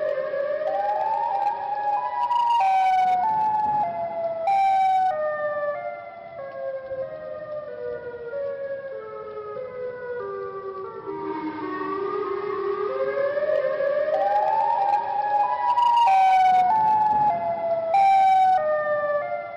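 Siren sound effect standing in for the call of Siren Head: a wailing siren whose pitch moves in short steps, climbing for about two seconds, stepping down over about eight seconds, then climbing again around the middle and falling toward the end. Short bursts of hiss break in a few times.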